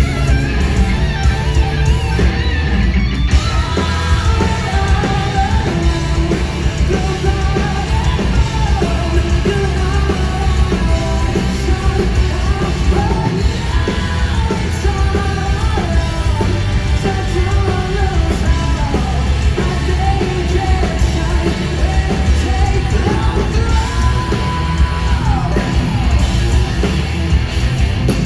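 Live hard rock band playing loud: distorted electric guitar, bass and drums, with a male lead singer's vocal over them.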